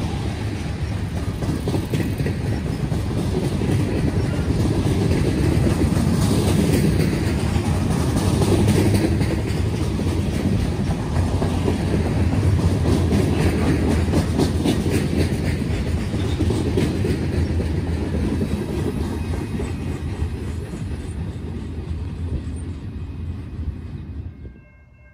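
Freight train of open-top gondola cars rolling past at close range: a steady rumble with wheels clicking over the rail joints. It eases off as the last cars go by, then cuts off sharply just before the end.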